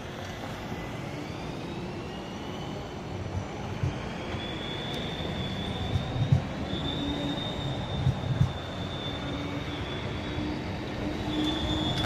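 Low-floor articulated city trams passing on a curve, their wheels giving a high steady squeal from about three seconds in, with rising whines in the first few seconds and a few low thumps, over the steady noise of street traffic.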